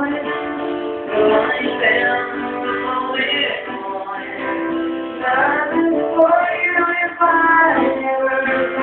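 A solo voice singing a melodic line over acoustic guitar.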